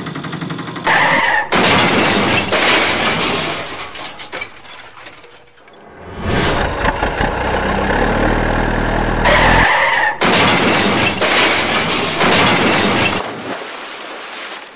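Added vehicle sound effects: a brief tyre screech followed by a few seconds of loud crashing and breaking noise that dies away, then a low rumble, then the same screech and crash again about ten seconds in.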